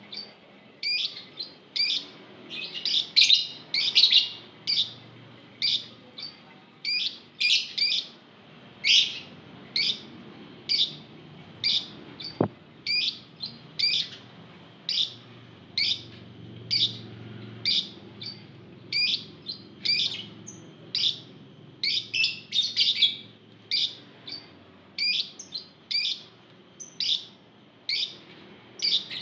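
A flock of lovebirds chirping: short, sharp, high calls about twice a second, with busier bursts where several birds call over one another. A single click sounds about halfway through.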